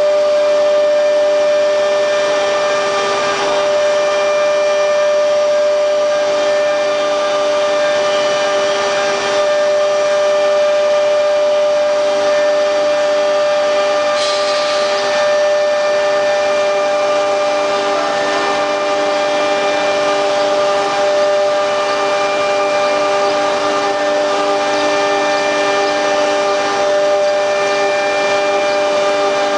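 QS6090 CNC router spindle running at speed with a steady high whine, over the noise of the bit cutting, with a brief scrape about halfway through.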